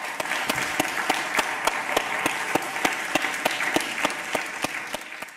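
Audience applauding, dense rapid hand claps with a few sharper, closer ones standing out; the applause fades near the end.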